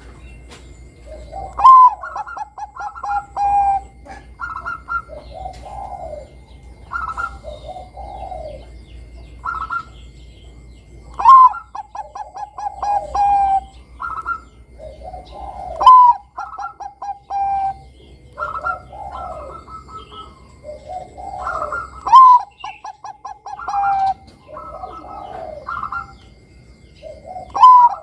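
Zebra dove (Bangkok-strain perkutut) singing its manggung song. Five loud phrases each open with a sharp note and break into a quick stuttering run of coos that trails off lower, with softer coos between them.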